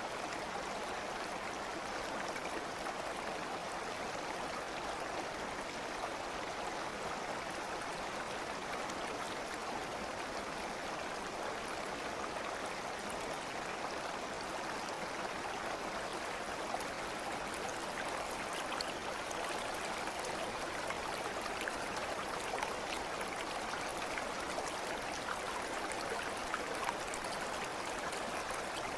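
Steady flow of a stream, an even rush of water with faint scattered trickling ticks.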